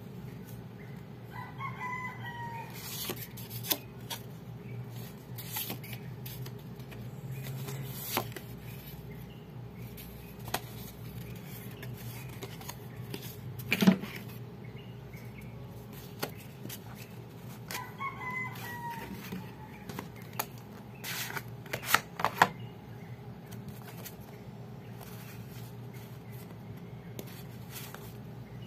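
A deck of paper game cards being handled and flipped through, with scattered clicks and taps; the loudest is a sharp knock about 14 seconds in. A bird calls twice in the background, once near the start and again about 18 seconds in, over a steady low hum.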